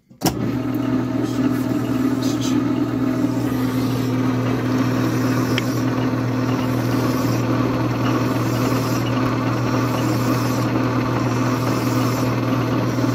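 Small bench lathe switched on about a quarter second in, its motor and spindle then running steadily with a low hum and a constant whir.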